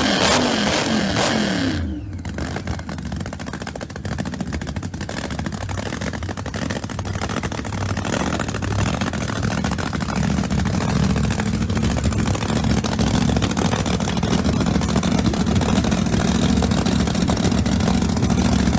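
Drag race cars' engines revving, the pitch dropping over the first two seconds, then running at a steady rumbling idle that grows louder from about ten seconds in.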